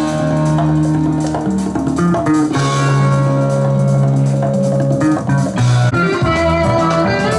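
Music with guitar and drums playing from a vinyl LP on a Thorens TD165 belt-drive turntable, the stylus tracking the groove.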